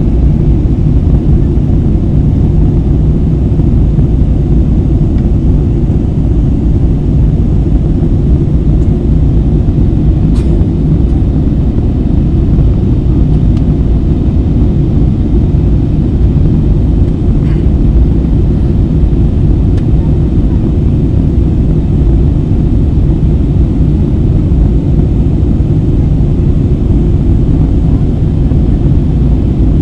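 Steady cabin noise of an Airbus A320 jet airliner climbing after takeoff: a loud, even low rumble of the engines and rushing air.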